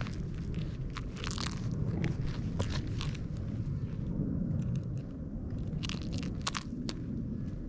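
A feather-and-pom-pom cat toy on a cord is batted, bitten and dragged over a concrete wall by a cat, making scattered crunchy clicks. The clicks thin out about halfway through and come back in a short cluster near the end, over a steady low rumble.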